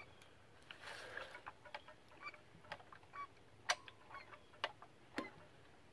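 Primer bulb of a Husqvarna Rancher 450 chainsaw being pressed over and over before starting, a faint click at each press, roughly one a second.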